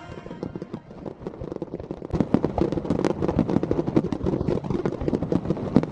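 Fireworks crackling: a dense, irregular run of sharp pops and cracks that grows busier about a second in.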